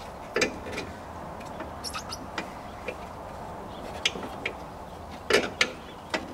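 Scattered clicks and knocks of a clip remover tool prying at a small plastic retaining clip, about ten separate taps with the loudest about five seconds in.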